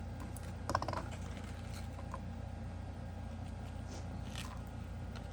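Hands handling the small package of a fidget toy's loose parts: a short cluster of clicks about a second in and a brief rustle near the end, over a steady low hum.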